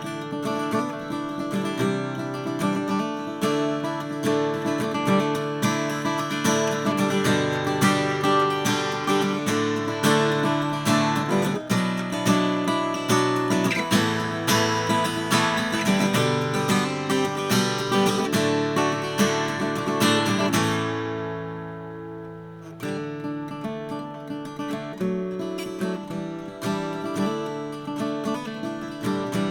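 A 1959 Gibson LG2 acoustic guitar, an X-braced flat-top, played with many quick strokes across the strings, with its pickguard removed. About two-thirds of the way in, a chord is left to ring and fade, then softer playing resumes.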